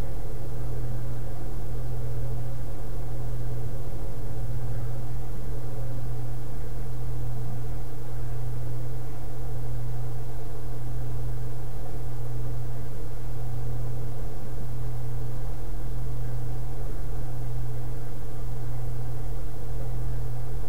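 A steady, unchanging low hum with a buzzing undertone and no other events.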